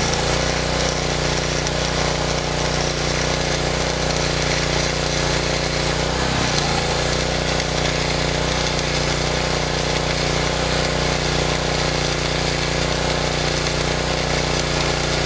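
Stick-welding arc crackling and sizzling steadily as a rod is run on steel angle and channel iron, fed by a Hobart Stickmate AC/DC welder. A steady low hum runs underneath.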